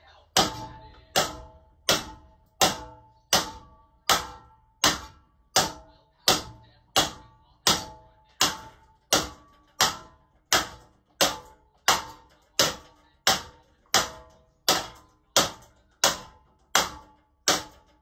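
Damaged HPM ceiling fan with bent blades turning unevenly and knocking once about every 0.7 seconds, each knock sharp with a short metallic ring.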